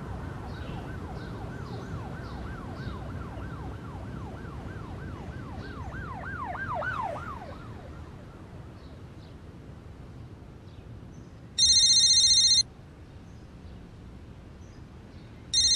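An emergency-vehicle siren in a fast yelp, rising and falling about three times a second over a low rumble; it swells about seven seconds in and cuts off soon after. Then a mobile phone rings twice, two loud one-second electronic rings about four seconds apart.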